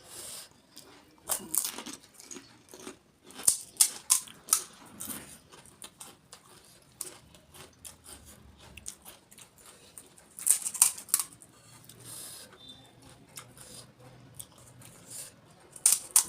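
Crisp golgappa (pani puri) shells crunching while being chewed, coming in several bursts of sharp crackling with quieter gaps between.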